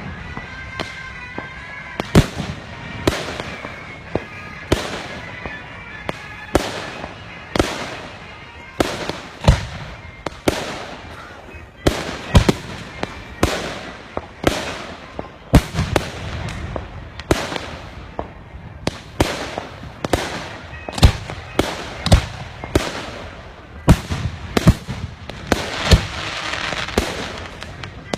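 Aerial fireworks display: shells bursting in quick succession, about one to two loud bangs a second, each with a short echoing tail, and a stretch of crackling near the end.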